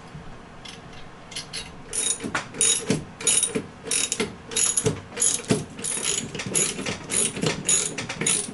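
Hand socket ratchet clicking in quick back-and-forth strokes, about three a second, starting about two seconds in, turning a nylon lock nut on the bike's handlebar mount.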